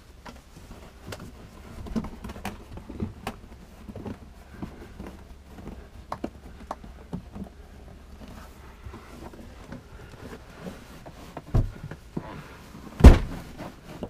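Handling noise around a lifted plastic RV toilet: scattered light knocks, clicks and rustles as hands work a towel around the bowl, with a louder thunk about a second and a half before a single loud thunk near the end.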